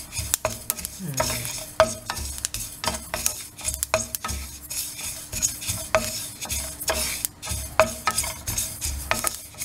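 Wooden spatula stirring black sesame seeds as they dry-roast in a non-stick pan: a steady scraping rustle of seeds against the pan, broken by irregular sharp ticks and knocks.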